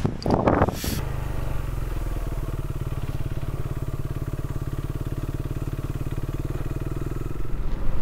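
Single-cylinder engine of a Husqvarna Svartpilen 401 with a LeoVince LV-10 exhaust running steadily at low revs, a fast even thumping pulse, growing louder near the end. A brief burst of noise comes first.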